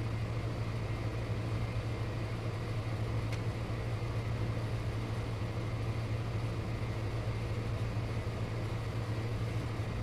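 Steady low background hum, like a fan or motor running, with one faint click about a third of the way in.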